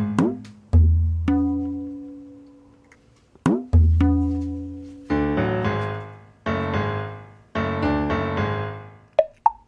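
Background music: low notes and chords that start sharply and die away, with two quick sliding-pitch effects and a few short high blips near the end.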